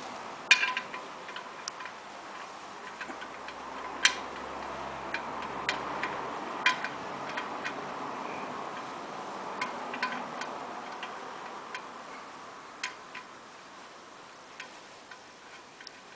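Engine oil draining from a Yanmar AF333R tractor's engine into a plastic bucket: a soft, steady pouring hiss that fades toward the end, with irregular drips and small clicks.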